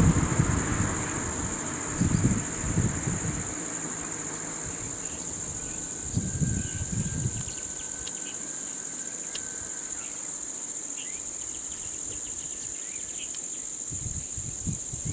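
Steady high-pitched drone of insects, unbroken throughout, with a low rumble fading out in the first second.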